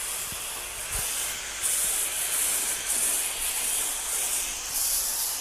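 High-pressure washer gun spraying through a foam-cannon bottle, a steady hard hiss that swells and eases several times as the foam jet plays over the truck.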